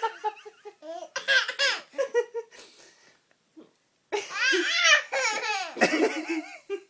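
A baby of about seven months laughing in bursts: one bout about a second in, a short lull, then a longer, louder bout about four seconds in.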